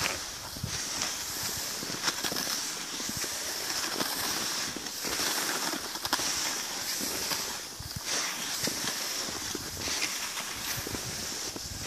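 Cross-country skis hissing as they glide along a groomed snow track, with a stride or pole stroke roughly once a second.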